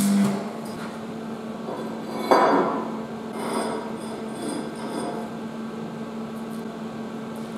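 A hand hammer striking a welded steel stand: one sharp metallic knock about two seconds in, then a few lighter clinks.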